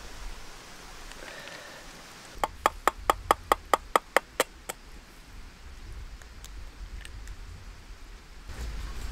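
An egg tapped against the rim of a metal frying pan: a quick run of about a dozen light, ringing taps, roughly five a second, that stops after a couple of seconds.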